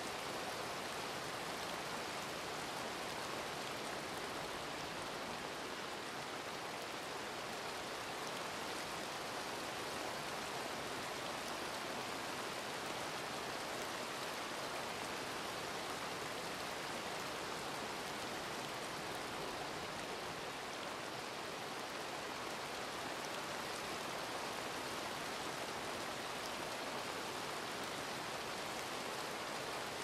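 Steady rain falling, an even hiss that keeps up without change.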